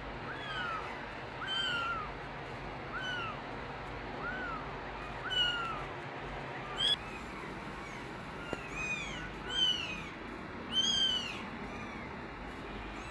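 Kittens mewing repeatedly: short high-pitched cries that rise and fall, about one a second, some higher-pitched than others.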